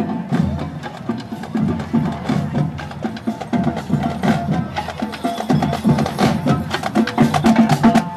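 Parade percussion playing: a fast rhythm of sharp wooden clicks and drum hits with some held pitched notes, growing louder near the end.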